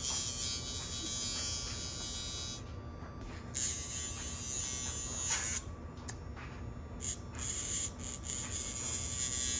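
Casfuy two-speed rechargeable dog nail grinder running with a steady, fairly quiet motor hum. Its grinding head gives a high rasping hiss in stretches of two to three seconds with short breaks between, filing down a puppy's nails.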